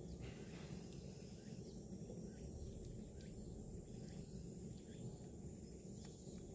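Insects chirping in the background, a high-pitched pulse about once a second, over a low steady rumble with a few faint ticks.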